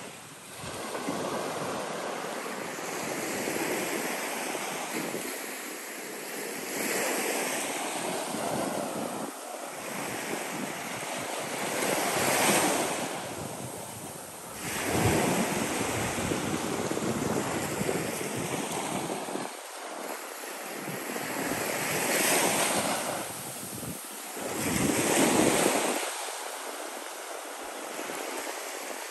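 Small Gulf of Mexico waves breaking and washing up a sandy shore, the surf swelling and fading every few seconds, loudest about halfway through and again near the end.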